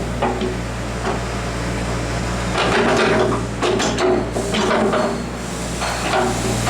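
Hyundai R55 mini excavator running: a steady diesel engine hum under repeated knocks and metallic clatter from the working machine.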